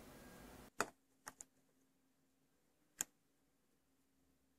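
A few small plastic clicks and taps from a LEGO toy door and minifigure being handled: a sharp click about a second in, two faint ticks just after, and another click around three seconds in.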